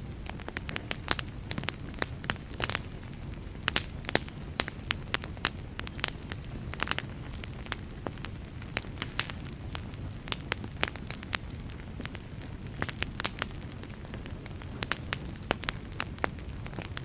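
Wood fire crackling, with irregular sharp pops several times a second over a steady low rumble.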